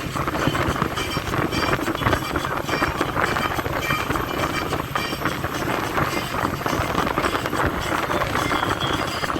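Steady noise of a moving vehicle, heard from aboard a land-boat limousine, with many small knocks and rattles throughout.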